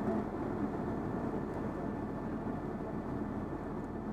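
Armored military vehicle's engine running steadily, a low even hum heard from inside its gun turret.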